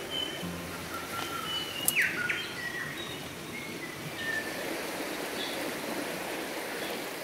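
Forest ambience: wild birds giving scattered short whistled calls, with a quick falling whistle about two seconds in, over a steady background hiss.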